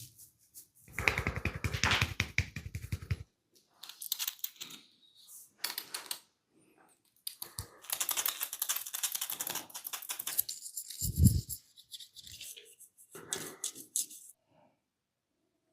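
Hands-on head massage: a barber's hands rapidly tapping, rubbing and scratching on a person's head and skin, in bursts of dense clicking with short pauses between them. About eleven seconds in there is one heavier, deep thump, the loudest sound.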